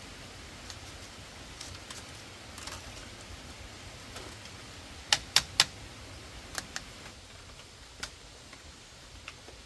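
A series of sharp taps or clicks over a low steady background, with three loud taps in quick succession about halfway through and a few fainter ones after.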